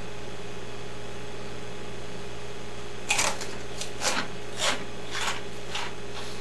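A mouthful of Funyons onion-flavoured snack rings being crunched and chewed, starting about three seconds in, with a crunch roughly every half second. A steady low hum runs underneath.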